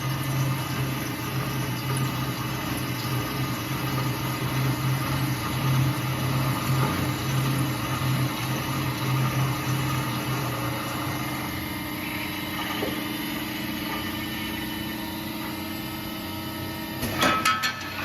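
Machine-shop drilling machine running with a steady low motor hum that fades about two-thirds of the way through, then a short burst of metallic clatter near the end.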